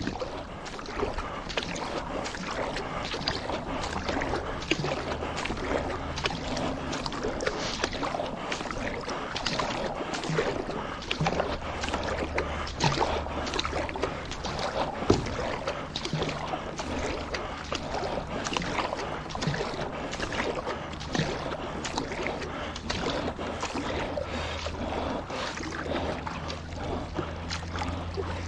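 Paddle strokes and water splashing as paddle boards move through the water, an irregular run of splashes with an occasional knock.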